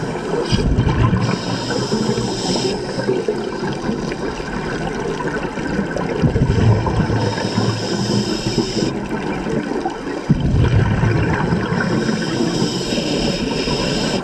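Scuba diver breathing through a regulator underwater: hissing inhalations alternating with bursts of exhaled bubbles, a few breath cycles.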